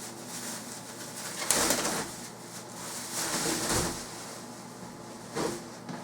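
Rustling and scraping of packaging as the chair's seat is pulled out of its box, in uneven bursts: one about a second and a half in, a longer one around three and a half seconds, and a short one near the end.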